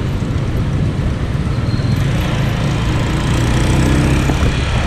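Honda CG125's single-cylinder four-stroke engine running on the move, its note climbing a little as the bike accelerates in the second half.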